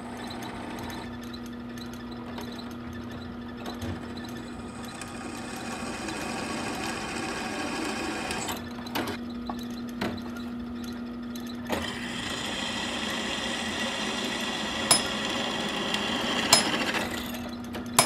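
Bench drill press running, its bit cutting through mild-steel tong jaws to bore a quarter-inch hole; the cutting noise rises as the bit bites in, twice, with a couple of sharp clicks near the end.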